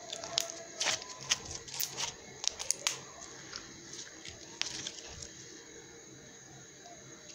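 Crunchy slime being squeezed and pulled by hand, crackling and popping in sharp clicks. The clicks come thick for the first three seconds, thin out, and stop about five seconds in.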